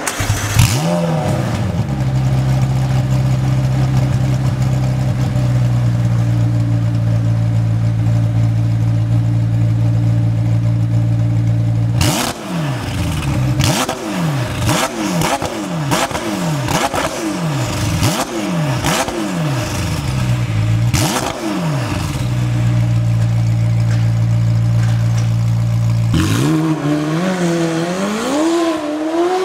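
McLaren 720S twin-turbo V8 through an Fi Exhaust valvetronic exhaust system: a quick rev, a steady idle, then a run of sharp throttle blips about one a second, idling again, and near the end the engine note rises as the car pulls away.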